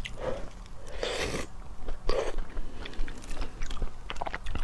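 Slurping thick lotus root starch paste off a metal spoon, a few short slurps in the first half, then wet chewing with small crunches and clicks as the nuts in it are eaten.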